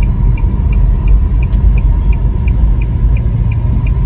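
Car cabin noise while driving slowly in traffic: a steady low rumble of engine and tyres, with a faint, even ticking about four times a second.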